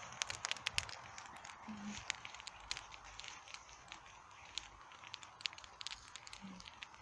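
Wood campfire crackling, with irregular sharp pops.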